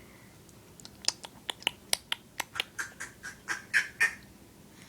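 A quick, uneven string of small sharp clicks and smacks, about three or four a second, starting about a second in and stopping just past four seconds.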